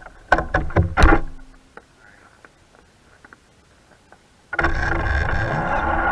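A few sharp knocks and rattles about a second in, then quiet. At about four and a half seconds loud music with distorted electric guitar starts abruptly and carries on.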